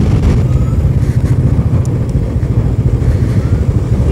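Royal Enfield single-cylinder motorcycle engine running under way, a steady low rumble with quick even pulsing.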